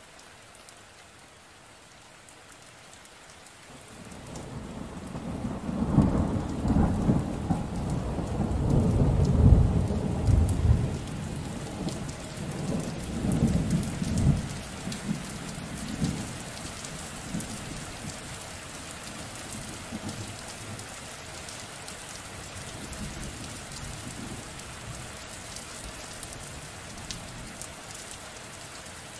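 Thunderstorm: steady rain falling, with a long roll of thunder that swells about four seconds in, rumbles loudest for several seconds, and dies away by about sixteen seconds, leaving the rain alone.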